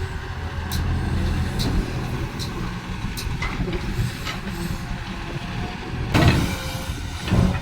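Excavator diesel engine running steadily, with sharp clicks and knocks over it, and two loud rushing bursts about a second apart near the end.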